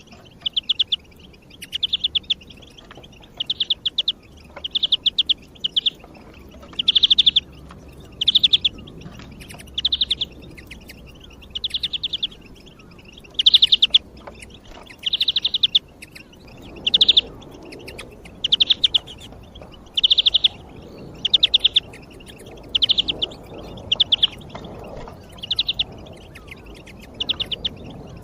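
European greenfinch singing: short, rapid, high trills repeated about every second and a half.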